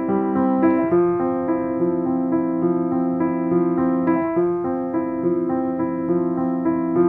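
Background music: a piano playing a steady, even run of repeated notes.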